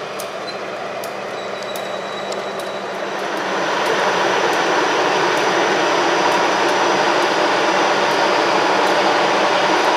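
CC 203 diesel-electric locomotive's engine running while it stands at a signal, with a steady roar that grows louder about three and a half seconds in and then holds.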